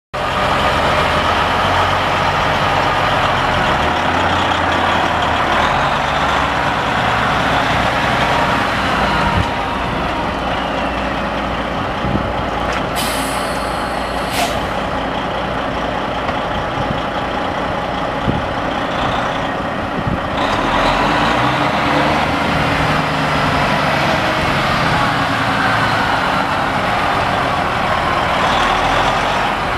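Kenworth T800 semi tractor's diesel engine idling steadily, with a brief hiss about thirteen seconds in.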